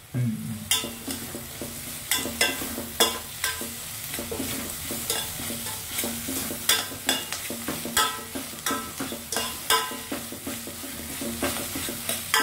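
Metal spoon stirring onions and tomatoes frying in oil in a stainless steel pot, irregular ringing clinks and scrapes of the spoon against the pot over a steady sizzle.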